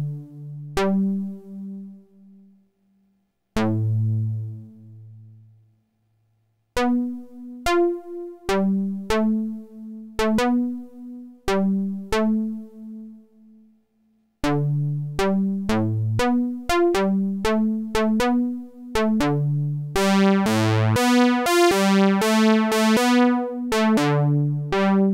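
Fred's Lab Zekit analog-digital hybrid synthesizer. Low notes are entered one at a time with pauses while its step sequencer records. From about 14 seconds in, the recorded pattern plays back as a steady repeating sequence. About 20 seconds in the tone turns much brighter and buzzier.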